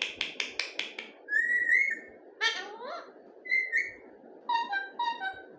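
Pet parrot calling: a quick run of harsh repeated notes, about six a second, then short whistles that rise and fall, a raspy call, and a string of short chirps near the end.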